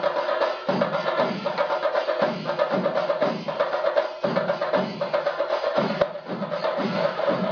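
Music driven by a steady, fast drum beat with a held tone over it.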